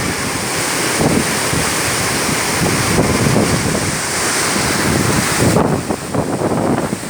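Waterfall rushing steadily, with wind buffeting the microphone. The high hiss drops away abruptly about five and a half seconds in.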